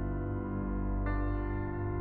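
Ambient background music of held, keyboard-like chords, changing to a new chord about a second in.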